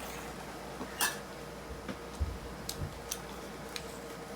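A few scattered light clicks and taps, handling noises in a small exam room, over a faint steady hum.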